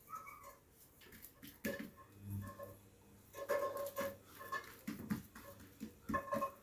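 Hands folding and patting a thin sheet of oiled msemen dough on a stone countertop: scattered soft pats and slaps with quiet rustling, plus faint pitched sounds in the background.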